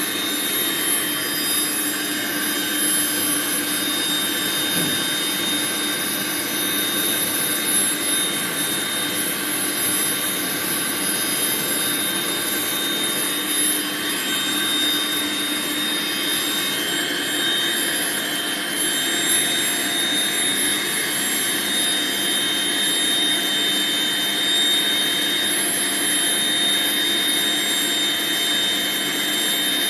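Dog grooming dryer blowing steadily: a constant rush of air with an even motor whine.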